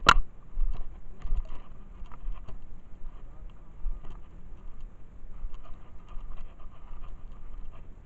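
Footsteps crunching through dry leaf litter and brush, with low rumble from the jostled handheld microphone. A single sharp snap right at the start is the loudest sound.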